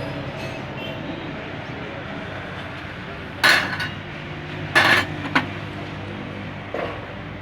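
Metal tools and small metal parts clinking together, four sharp clinks in the second half, the first two loudest, over a steady low hum.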